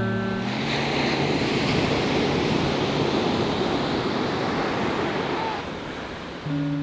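Ocean surf breaking and washing up on a sandy beach, a steady rush of waves that eases off near the end.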